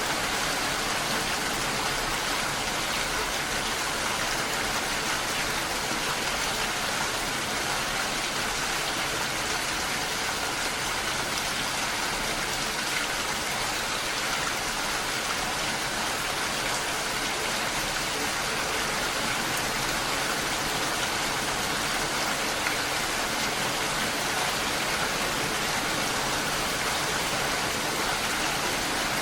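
Steady rain falling on a lake's surface, an even hiss of drops that holds constant throughout.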